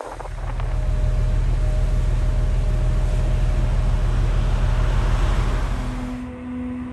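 Steady low rumble of the Resort Shirakami's HB-E300 hybrid diesel train engine, with a faint steady hum over it. About six seconds in it fades as soft music with a long singing-bowl-like tone comes in.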